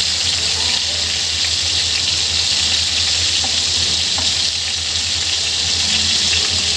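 Chicken pieces sizzling steadily in hot mustard oil on high heat, stirred with a wooden spatula, over a low steady hum. The sizzle is the water released by the chicken boiling off in the oil.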